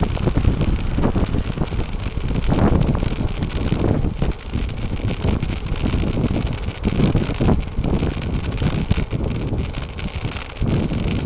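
Wind buffeting the microphone of a moving camera, a gusty rushing noise that rises and falls, with road and vehicle running noise underneath.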